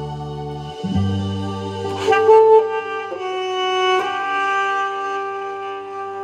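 Saxophone over a backing track playing the closing phrase of a slow instrumental song: a few long held notes, the last one sustained.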